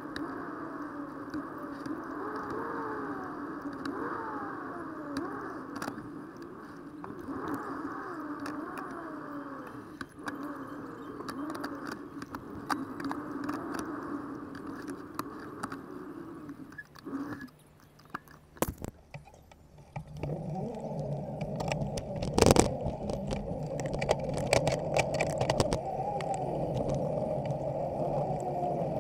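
Riding noise picked up by a bicycle-mounted action camera: a steady rolling and rushing sound with rattles. Sharp knocks and clatter come in the later part, one louder than the rest.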